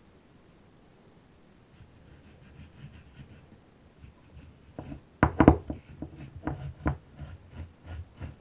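A long-tailed (Java) macaque handling a round hairbrush and knocking it against the sink. First comes light scratching and rubbing, then from about five seconds in an irregular run of sharp knocks, the loudest just after five seconds.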